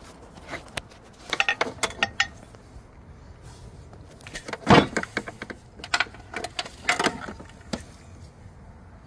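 Irregular metallic clicks and clinks in three bursts, with one louder knock about halfway through.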